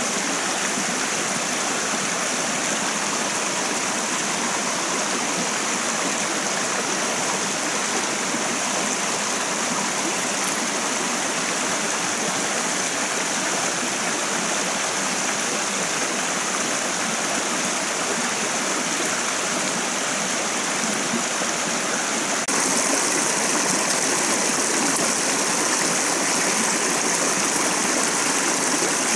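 Rocky forest stream running over small cascades: a steady wash of water noise, a little louder from about three-quarters of the way through.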